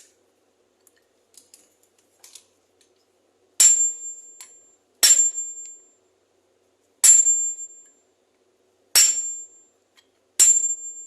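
Five hammer blows on metal, each ringing with a high tone, spaced about one and a half to two seconds apart, as the bearing is driven off an Electrolux washing-machine motor.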